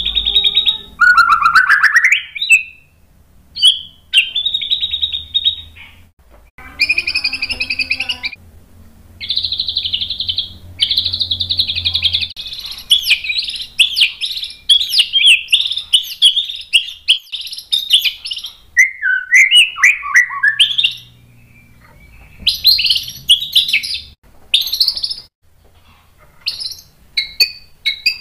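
White-rumped shama (murai batu) singing loudly in bursts of varied phrases with short pauses: buzzy rattling trills, a rising whistle early on, long runs of rapid notes in the middle, and a few falling slurred notes later. It is in full song, running through its repertoire of fill-in (isian) phrases.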